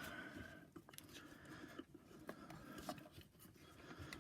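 Faint rubbing and a few small clicks from hands working a rubber drive belt around a vacuum cleaner's plastic brush roll.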